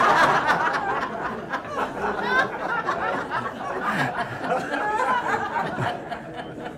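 Audience laughing at a joke, loud at first and dying away into scattered chuckles and murmurs.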